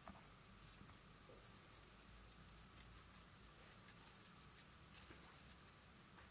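Faint, quick high clicks and small rattles of a metal spoon in a ceramic bowl and of spice shakers being shaken over it, as spices go into a bowl of meatball mixture.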